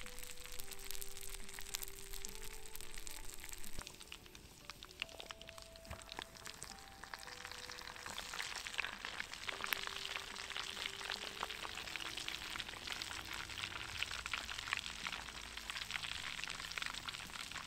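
Raccoon legs deep-frying in their own rendered fat, a steady crackling sizzle that grows louder about halfway through. Soft background music with held notes plays along.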